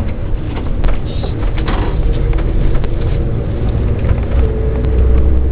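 Cabin noise inside a Mitsubishi Fuso Aero Queen I coach (KL-MS86MP) under way: a steady low engine and road drone with a few short rattles in the first two seconds. The low drone grows heavier from about four seconds in.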